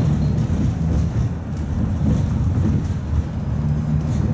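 Running noise of a 71-619A tram heard from inside the car as it rolls slowly along curved track: a steady low rumble of wheels and running gear, with a few faint clicks.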